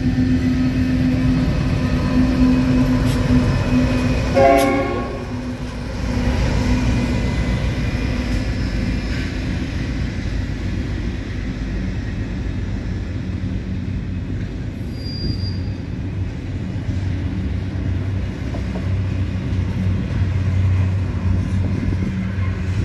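Intermodal freight train passing. A steady tone holds for the first few seconds, and a short horn blast sounds about four and a half seconds in. Container wagons then roll past with a steady low rumble of wheels on rail.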